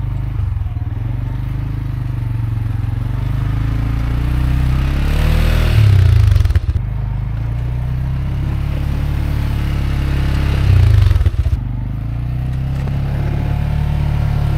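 CFMoto CForce 520 ATV's single-cylinder engine running under load while plowing snow, revving up twice about five seconds apart as it pushes, with the plow scraping through the snow.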